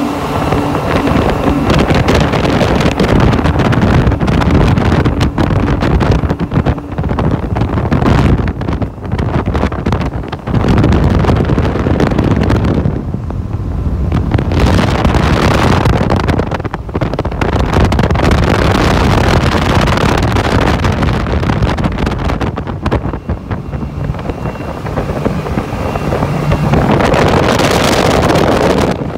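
Twin Honda BF225 V6 four-stroke outboards running at speed on a planing boat, with rushing water, hull noise and wind buffeting the microphone. The steady engine note is plain for the first several seconds, then is mostly covered by wind gusts that rise and fall.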